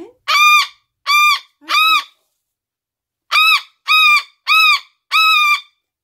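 Umbrella cockatoo screaming: seven loud, harsh calls, each rising and falling in pitch. Three come in quick succession, then after a pause of about a second, four more.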